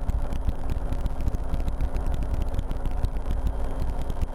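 RotorWay experimental helicopter in flight, heard from the cockpit: steady engine and rotor noise.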